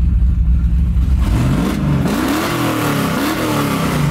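Pickup truck's V8 with Holley Sniper fuel injection and open exhaust cutouts, running at a low rumble, then revving hard under full-throttle acceleration from about a second in. The pitch climbs, dips and climbs again as it pulls, and eases off near the end.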